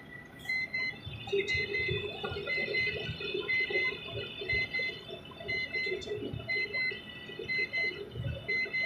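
Electronic warning beeper sounding a steady run of short beeps, about two a second, over an irregular low rumble.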